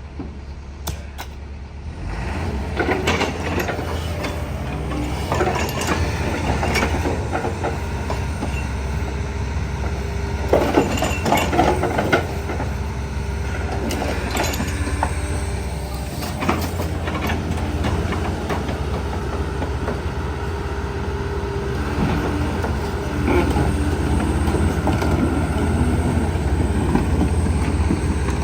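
A heavy engine running with a steady low drone, with scrap metal clanking and scraping at intervals, the loudest clatter about ten to twelve seconds in.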